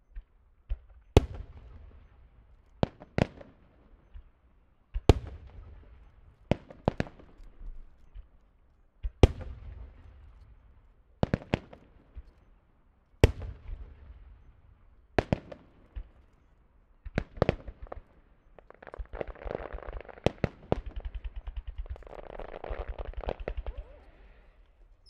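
Aerial firework shells bursting one after another, a sharp bang about every two seconds, each trailing into echo. Near the end a star-mine volley sets in: rapid pops of many launches and bursts, mixed with crackling.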